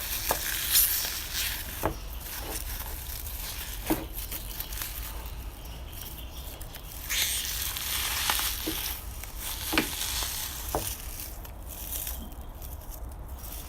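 Homemade slime layered with cotton being poked and squished by hand: a continuous sticky crackling, with sharp pops now and then.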